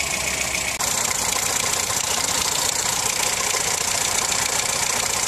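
Ford 1.3 engine idling steadily, with a brief dropout about a second in.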